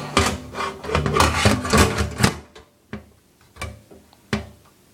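Hard objects being handled: a quick run of clattering knocks, then a few separate knocks that are spaced out toward the end.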